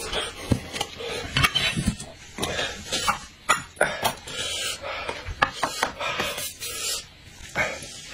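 Scattered clinks and taps of dishes and tableware, with a whole braised chicken being handled and pulled apart by hand.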